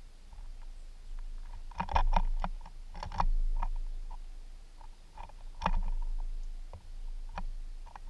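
A finch pecking and shuffling on a wooden platform feeder of mixed seed, close to the microphone: quick dry ticks and taps, bunched about two and three seconds in, then scattered single taps, over a low rumble.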